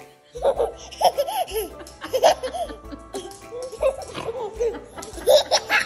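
A baby laughing in repeated bursts of giggles, over background music.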